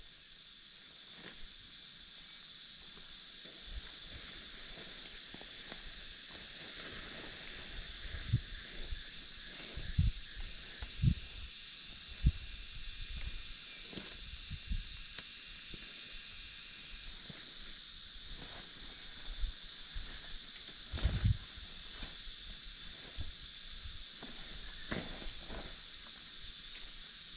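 A steady, high-pitched insect drone swells in at the start and holds level throughout. A few low thumps come between about 8 and 12 seconds in, and again around 21 seconds.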